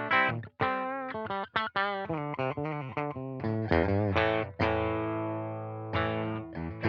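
JCraft LSX-1 electric guitar with humbucker pickups, played through distortion: a run of picked single notes with bends and vibrato, a long held note about two thirds of the way in, then quick notes again near the end.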